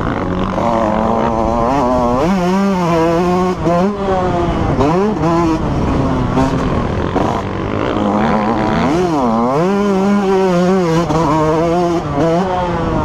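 Motocross dirt bike engine heard close up from the bike itself, revving hard and steadily under throttle. Its pitch dips sharply and climbs back several times as the rider shuts off and gets back on the gas.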